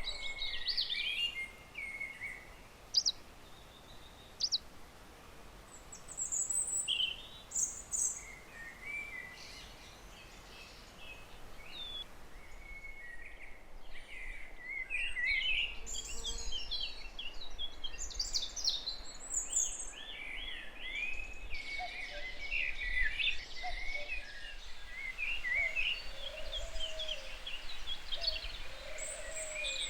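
Songbirds singing and chirping, with short sharp calls early on and a busier, overlapping chorus of warbling phrases from about halfway through, over a faint steady background hiss.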